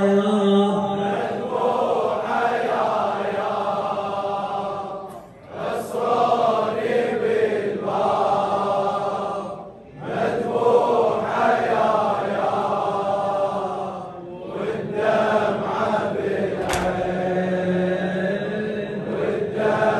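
Men's voices chanting an Arabic latmiya mourning lament: a lead reciter on a microphone with a crowd of men, in long sung phrases broken by short pauses about five and ten seconds in.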